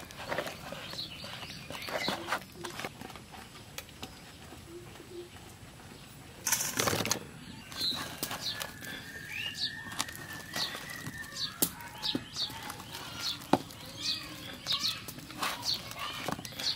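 A hand squelching and slapping thick pakoda batter in a steel bowl, working pieces of goat lung through it, in a run of short wet squishes, with a louder burst about seven seconds in.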